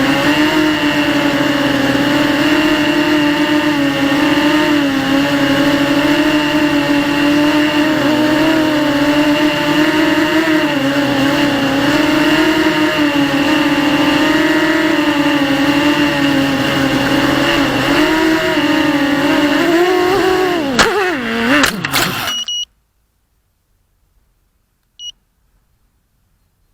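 Brushless motors and propellers of a 250-size racing quadcopter whining steadily in flight, pitch wavering with the throttle. About 21 seconds in, the pitch falls away with a few sharp knocks as the quad crashes. The sound then cuts off abruptly, and there is a brief faint beep a couple of seconds later.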